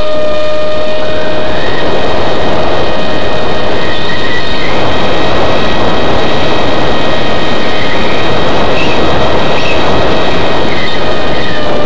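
Model airplane's motor and propeller at steady flight power, heard up close from an onboard camera: a steady high whine with overtones over a heavy rushing of wind and prop wash.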